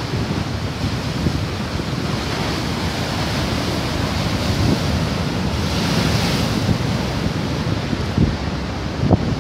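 Heavy storm surf breaking and washing over a rocky shore, with wind buffeting the microphone; the hiss of a breaking wave swells about six seconds in.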